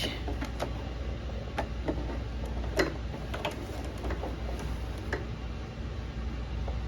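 Scattered light clicks and taps from handling at a sewing machine, coming at uneven intervals about once or twice a second, over a faint steady low hum.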